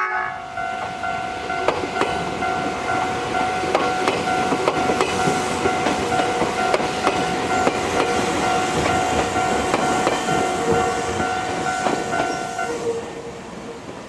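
Izukyu 8000-series electric train running through a level crossing, its wheels clicking over the rail joints, while the crossing's warning bell rings steadily and cuts off near the end as the train clears.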